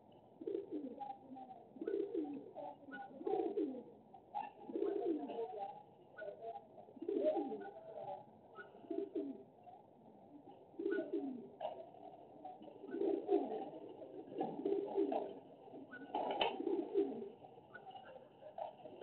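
Pigeons cooing: repeated low, soft coos, one every second or two.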